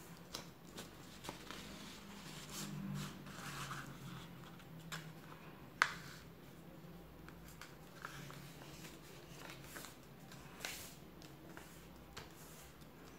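A sheet of paper being folded and creased by hand on a table: soft rustling and sliding with scattered crisp crinkles, and one sharp snap about six seconds in.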